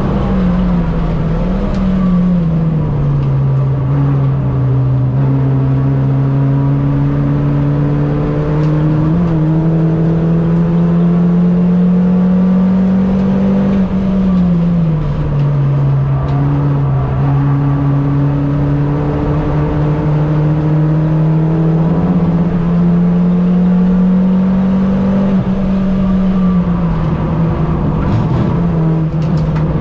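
Racing Mini's engine under hard acceleration: its note climbs slowly through the revs and then falls back quickly, three times.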